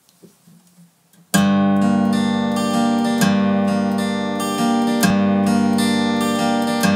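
Steel-string acoustic guitar playing the chordal introduction to a song, starting about a second in, with chords picked and strummed in a steady rhythm and left to ring.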